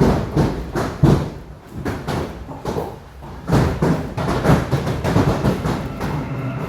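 Large hailstones pelting down: a constant clatter with irregular heavy thuds, the hardest about a second in and again past the middle.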